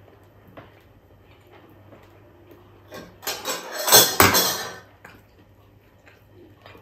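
A metal ladle clattering and scraping against stainless steel cookware, a loud burst from about three seconds in lasting nearly two seconds, with a few faint small clicks of eating before it.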